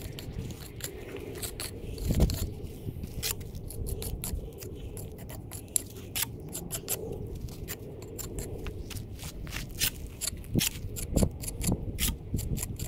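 Steel jointing tool scraping along fresh mortar joints of a brick pier: a run of short, irregular scratchy strokes that come faster near the end, with a dull knock about two seconds in.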